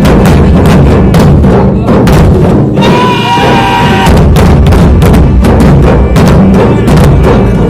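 Several dhol drums played hard and loud in a fast, steady beat. About three seconds in the low drum strokes drop out for about a second while a brief steady high tone sounds, then the full drumming resumes.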